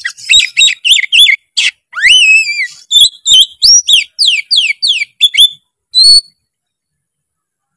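Oriental magpie-robin (kacer) singing a fast, varied song of sharp chirps and rising and falling whistled glides, packed with mimicked phrases. It cuts off suddenly about six seconds in.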